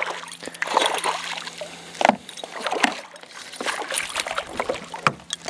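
A hooked brook trout thrashing at the surface beside the boat, making a string of irregular splashes.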